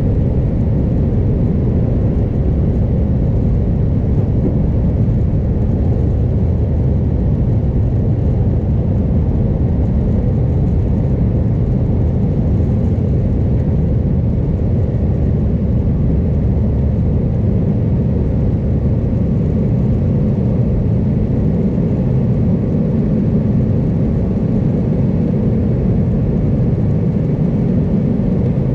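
Steady low rumble of an Airbus A320's two jet engines and rushing air, heard inside the passenger cabin during the climb after takeoff.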